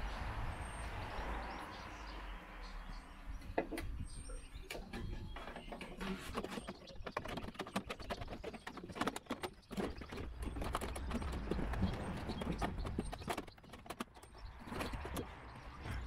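Scattered clicks and rattles of metal threading rods and cable being worked inside a hollow van barn door, starting about four seconds in, over a low wind rumble on the microphone.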